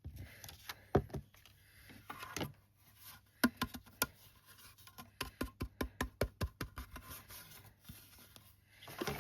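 Light taps and knocks from hands handling stamping and embossing supplies on a tabletop, with a quick run of small taps in the middle.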